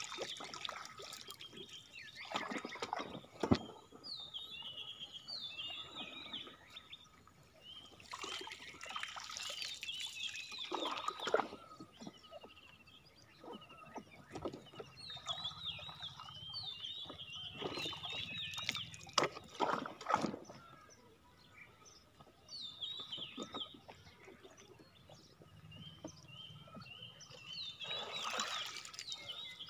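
Small birds chirping in quick twittering bursts, with water splashing and sloshing now and then as a bamboo pole pushes a banana-trunk raft through floodwater. A single sharp knock about three and a half seconds in.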